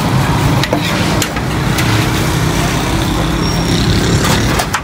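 Road traffic with a motor vehicle engine running steadily under it. A few sharp metallic clicks come from a steel ladle knocking against a large steel cooking pot.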